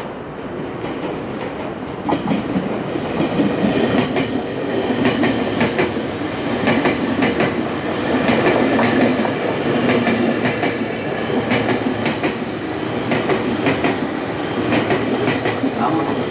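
Meitetsu red electric commuter train running past close by, its wheels clacking over rail joints in quick groups. The rolling noise swells about two seconds in as the cars reach the microphone.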